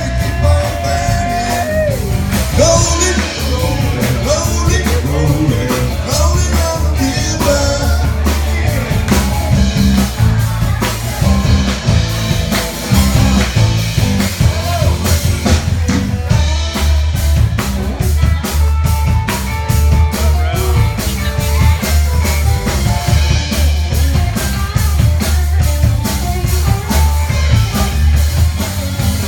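Live rock band playing: a man singing lead over electric bass guitar and a drum kit, with the bass heavy in the low end.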